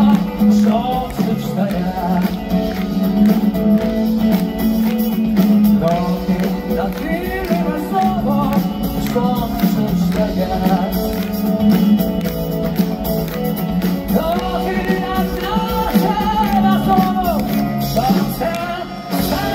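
Live rock band playing, with electric and acoustic guitars, bass and drums, and a male lead singer singing over them. It is heard from the audience in a large concert hall.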